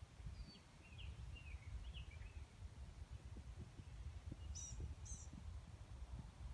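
Faint small songbird chirps: a quick run of short high chirps in the first couple of seconds, then two brief, very high notes about five seconds in, over a low steady rumble.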